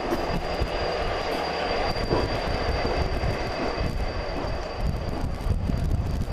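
Renfe locomotive running alongside the platform: a heavy, steady engine rumble with a thin, steady high whine over it.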